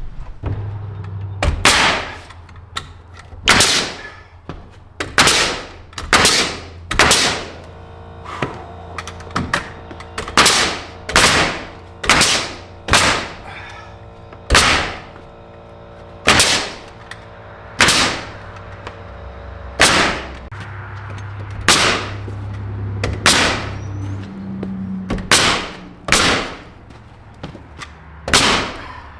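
Pneumatic nail gun driving nails into barn wall boards: about twenty sharp shots at uneven intervals of roughly one a second, each ringing briefly. A steady low hum runs underneath.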